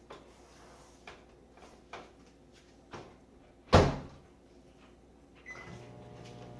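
Microwave oven door being worked on its newly repaired latch: light clicks about once a second, then the door shut with one loud clunk just under four seconds in. About two seconds later a steady mains hum starts as the microwave is switched on and runs.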